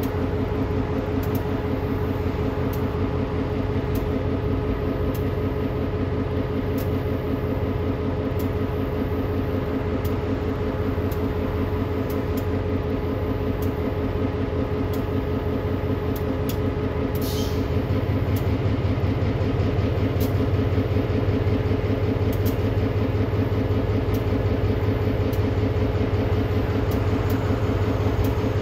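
Short-line freight train moving slowly: a diesel locomotive engine runs steadily while the freight cars roll with scattered light clicks. A brief high-pitched sound comes about 17 seconds in, and the engine gets louder just after.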